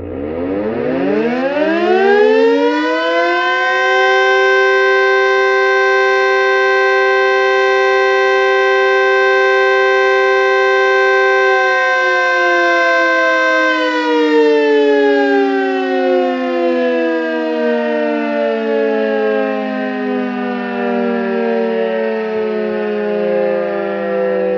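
Two motor-driven civil defence sirens, a DS977 and an S3b, spinning up together into a loud steady two-note wail within about four seconds. They then wind down one after the other, a little past halfway, the pitch still sliding down at the end. This is a weekly test alarm.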